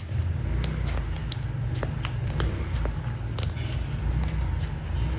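Slime being squeezed and worked by hand, with small crackling clicks and pops from air pockets, over a steady low rumble.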